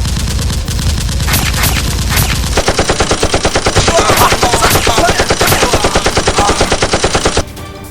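Automatic gunfire sound effects: a heavy rumble with a few single shots, then a fast, steady stream of machine-gun shots that cuts off suddenly near the end.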